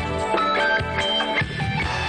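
Background music with a steady beat: short pitched notes over bass and drum hits.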